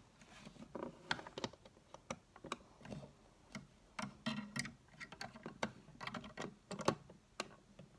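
Small plastic Lego pieces clicking and tapping as fingers handle a minifigure and press parts onto the build: irregular light clicks, the sharpest about seven seconds in.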